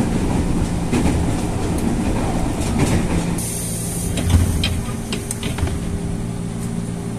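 Electric commuter train (KRL Commuter Line) heard from inside the carriage as it runs slowly along a station platform: a steady hum with scattered knocks and clicks, the loudest a low thump about four seconds in. A high hiss sets in suddenly a little after three seconds.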